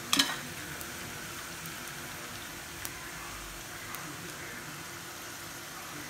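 Rava snack pieces deep-frying in hot oil in a kadai, the oil sizzling and crackling steadily. The pieces are fried until this sizzling dies down. A brief clatter sounds right at the start.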